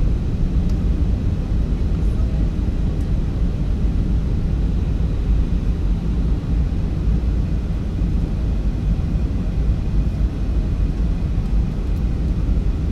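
Jet airliner cabin noise during the descent to land: the engines and the air rushing past the fuselage make a steady, low, unbroken rumble.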